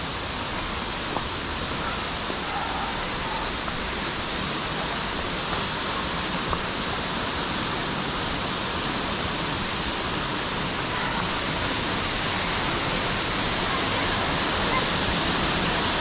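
Waterfall rushing steadily, growing slightly louder toward the end.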